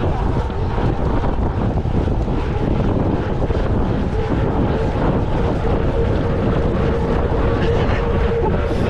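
Wind rushing over an action camera's microphone on a moving mountain bike, with steady rumble from the ride. A faint steady whine sits underneath, stronger in the second half.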